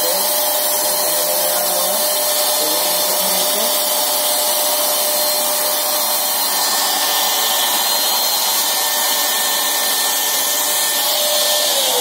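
Electric sanitizer spray machine's blower motor running at a steady pitch with a rushing air hiss, feeding a handheld spray gun that is spraying mist. Near the end the motor winds down, its pitch falling.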